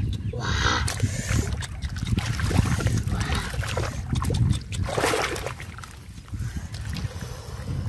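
Muddy water splashing and squelching as hands dig and grope through shallow mud among water hyacinth, over a steady low rumble. There are louder splashes near the start and about five seconds in.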